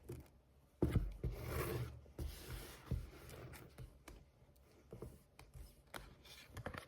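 Animal oracle cards being shuffled and handled: faint, irregular rustling and sliding with small clicks as the cards rub against each other.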